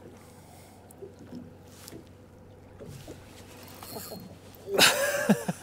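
Quiet sea-and-boat ambience from a small boat drifting on calm water, with a few faint knocks. Near the end comes a sudden loud cry made of several calls falling in pitch.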